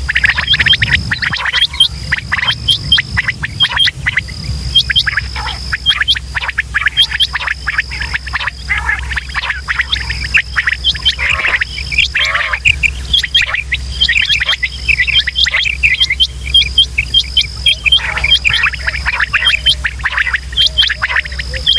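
Quail calling: a dense stream of short, sharp call notes in quick succession, with a steady high-pitched tone coming and going above them.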